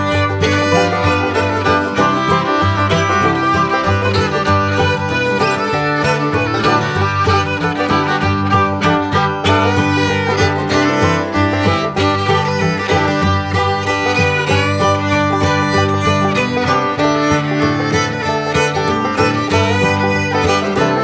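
Background music: an upbeat bluegrass-style tune with fiddle, banjo and guitar.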